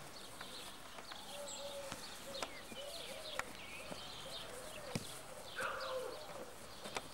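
A football kicked on grass, several separate sharp thuds a second or so apart, with birds chirping and faint voices in the background.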